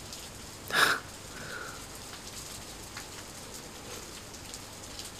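Steady rain falling, a soft even hiss with faint scattered drips. There is one brief, louder noise just under a second in.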